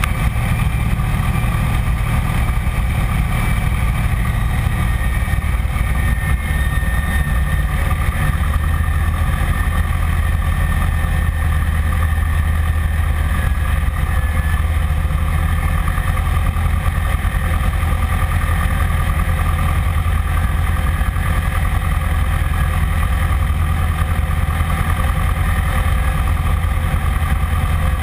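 A Piper PA-15 Vagabond's engine and propeller drone steadily in flight, heard from inside the cockpit with airflow noise over the cabin. The pitch sinks slightly over the first several seconds, then holds.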